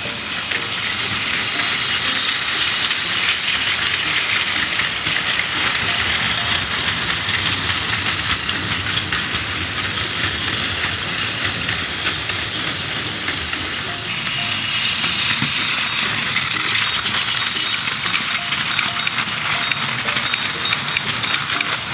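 Battery-powered Plarail toy trains running on plastic track: a steady rattling clatter of the small motors and plastic wheels clicking over the rail joints. It gets busier and a little louder about two-thirds of the way through as the wagons pass close by.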